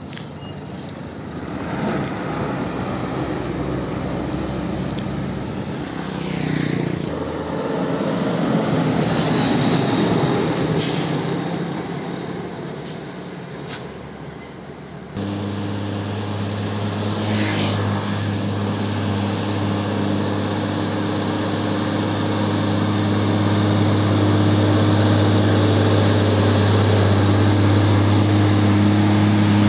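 UD Nissan PK-series diesel dump trucks on the road. First one passes amid general traffic noise. Then, after a sudden change, another approaches with a steady engine drone that grows louder and then holds close by.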